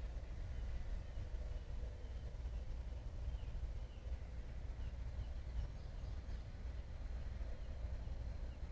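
Outdoor yard ambience: a steady low rumble, a faint high ticking repeating about four times a second, and a few faint bird chirps.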